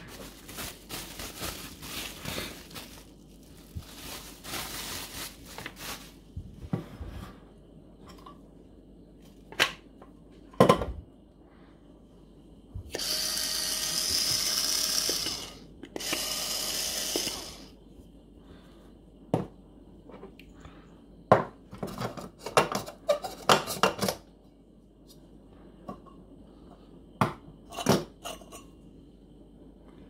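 Plastic bubble wrap rustling, then the Thomson Scenium TM-BCM-DL911 portable coffee maker's small electric grinder motor running twice briefly with a steady whine, for about two and a half seconds and then about two seconds. After that come sharp clicks and knocks as the metal grinder parts are handled.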